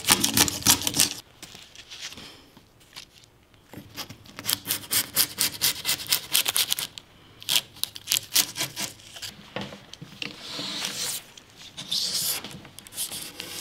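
Hand scraping and rubbing on a wooden dresser top in bursts of quick, even strokes, lifting off old finish that is peeling and gumming up.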